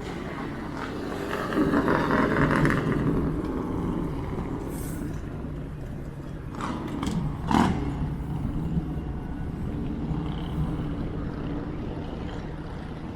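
Strong wind buffeting the microphone, with road traffic going by; a vehicle swells past about two seconds in, and a few short sharp knocks come around seven seconds in.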